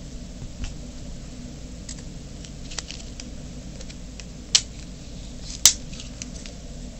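Scattered light clicks and two sharp snaps about two-thirds of the way through, from hands working small craft parts, over a steady low hum.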